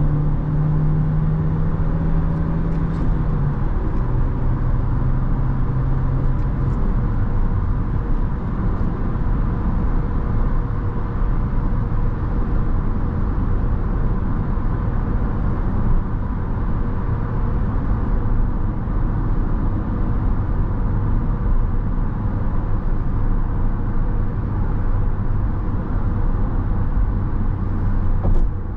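Inside the cabin of a Skoda Octavia II with a 1.6-litre four-cylinder petrol engine, driving at highway speed with steady tyre and road noise. The engine note steps down about two seconds in and fades into the road noise as the car settles after a full-throttle acceleration run. A lower, steady engine drone returns in the second half.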